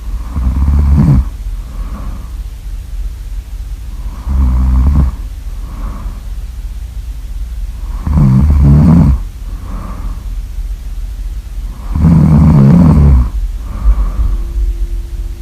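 A person snoring loudly in a slow, even rhythm: four long snores about four seconds apart, each lasting about a second, with a softer breath between each pair, over a steady low hum.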